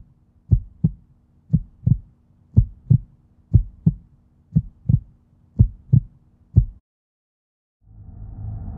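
Heartbeat sound, paired low lub-dub thumps about once a second over a faint steady hum. The beats stop about seven seconds in, and after a short silence a low sustained drone swells in near the end.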